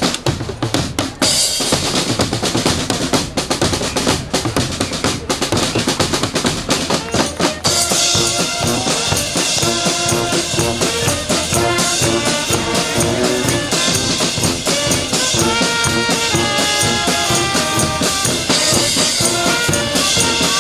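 Brass band with a drum kit playing. At first mostly the drum beat with cymbals, then saxophones, trumpet and sousaphone come in with a melody about eight seconds in.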